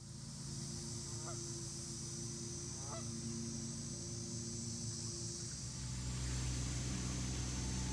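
Outdoor ambience: a steady high-pitched hiss over a low hum, with two short wavering calls about a second and a half apart, around one and three seconds in. The low hum grows louder near the end.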